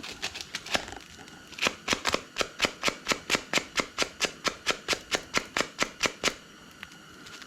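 A rapid, even run of sharp mechanical clicks, about four to five a second, lasting several seconds before stopping near the end.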